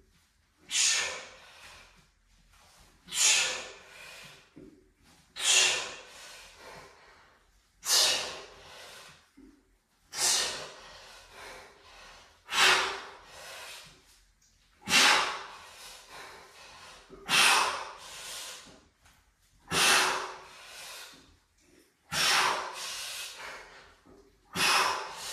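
A man's hard breathing during kettlebell wood chops: a sharp, forceful breath out with each rep, about one every two and a half seconds, with quieter breathing between.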